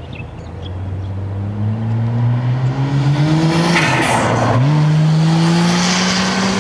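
Toyota JZX90 Mark II Tourer V's 1JZ-GTE twin-turbo straight-six accelerating past, its intake open to a pod filter. The engine note climbs, falls with an upshift about four and a half seconds in, then climbs again. A burst of hiss comes just before the shift.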